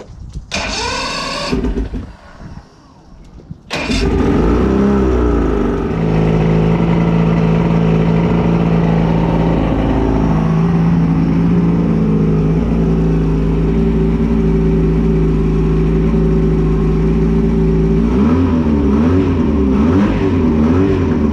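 1985 Mercury 90 hp two-stroke outboard motor being cranked and catching about four seconds in, then running at a steady idle. Near the end it is revved up and down a few times. With its new switch box it runs well and is snappy on the throttle.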